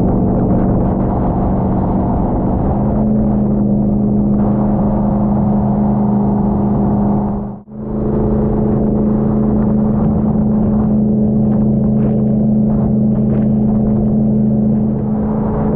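LS3 V8 jet boat engine running at a steady cruising speed, with a steady low drone that steps up slightly in pitch about three seconds in. The sound cuts out briefly about halfway through and then comes straight back.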